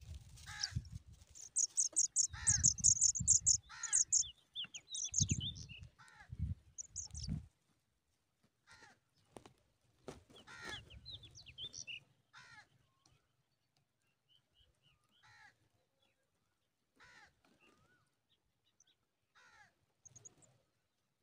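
Birds calling: a run of high, rapid chirps in the first few seconds, and repeated short calls that slide downward in pitch, coming every second or two and growing sparser in the second half. A low rumble sits under the first several seconds.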